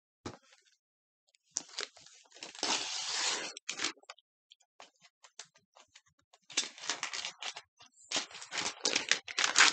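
Packaging from a laptop box being handled and torn open: paper and plastic wrap rustling and tearing in irregular bursts with small clicks and knocks, busiest a few seconds in and again over the last few seconds.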